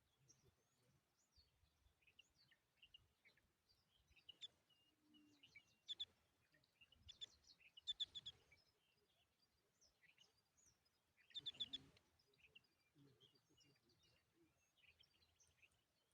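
Small birds chirping: many short, high chirps, with louder bursts of rapid chirping near the middle and again about three-quarters of the way in.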